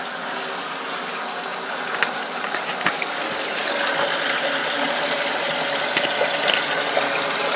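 Toilet fill valve filling the tank after the water supply is connected: a steady rush of water that slowly grows a little louder, with a few faint clicks.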